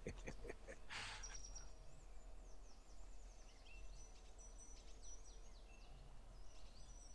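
Faint forest birdsong: short high chirps and quick falling notes, over a low steady hum, with a brief hiss about a second in.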